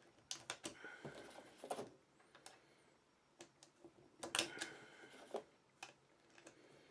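9mm cartridges being pressed one by one into a Glock 17 magazine with a +6 extension: irregular metallic clicks and brief scrapes of brass against the feed lips, the loudest about four seconds in. The magazine spring is getting stiffer as it fills.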